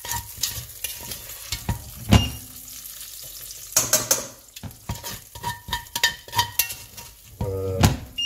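Chicken and bacon pieces sizzling in a hot enamelled cast-iron casserole while a utensil clinks and knocks against the pot and a steel bowl as the browned pieces are lifted out. There is a heavier knock about two seconds in and a brief squeak near the end.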